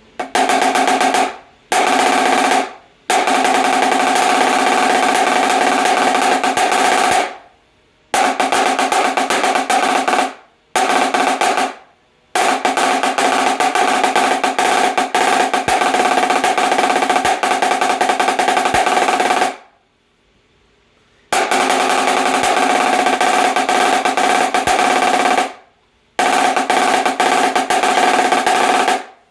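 Marching snare drum with gut snares played in loud sustained rolls, in about eight stretches of one to seven seconds broken by short pauses, with a strong ringing pitch from the head. The rolls test the snare tension after it has been loosened from a choked setting, looking for a clear, crisp response that is not too wet.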